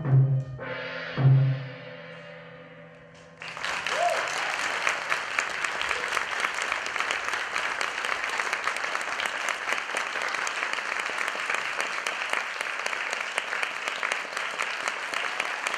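The dance score ends with a low drum stroke that rings away. About three seconds in, the audience breaks into steady applause.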